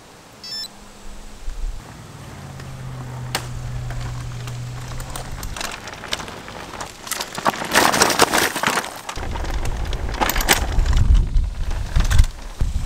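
A short smartwatch beep near the start, then a hose reel cart's wheels rolling and rattling over a paved street as it is pushed past. The rolling is loudest about eight seconds in.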